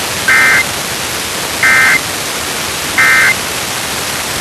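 Emergency Alert System end-of-message signal: three short bursts of SAME digital data tones, each a fraction of a second long and about a second apart, marking the end of the alert. A steady static hiss runs underneath.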